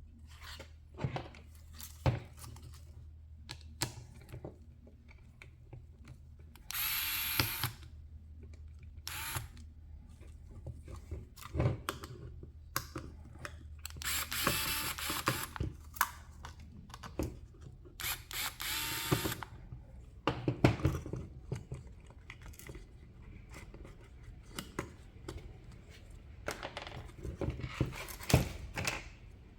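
Several short whirring runs of an electric screwdriver driving screws, between scattered clicks and knocks of small plastic and metal parts being handled.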